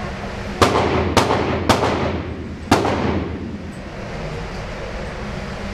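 Four handgun shots echoing in an indoor range: three about half a second apart, then a fourth about a second later, each ringing off the walls, over a steady ventilation hum.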